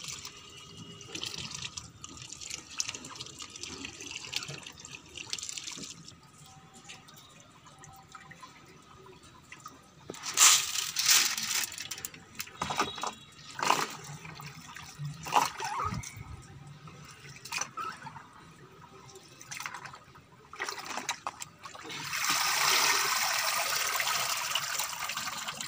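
Wheat grains being washed by hand in a plastic tub of water: swishing and sloshing, then several sharp splashes around halfway through. Near the end, water pours steadily from a sieve full of washed wheat back into the tub.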